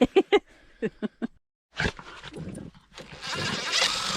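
A dog in an excited, aggressive play mood: short barks in quick runs in the first second or so, then a longer rough, raspy stretch near the end.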